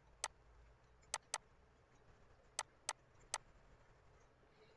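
Six faint, sharp clicks at uneven intervals, made by handwriting strokes on a computer drawing screen.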